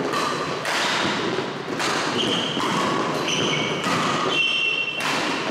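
Badminton doubles rally: rackets strike the shuttlecock about once a second, five times. Short high squeaks of court shoes on the floor come between the shots.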